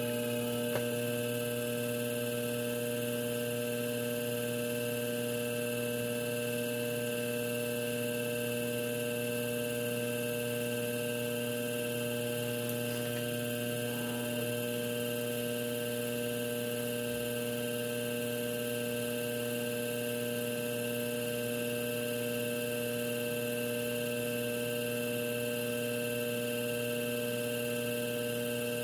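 Electric potter's wheel running at a steady speed, its motor giving a constant hum with a higher whine over it.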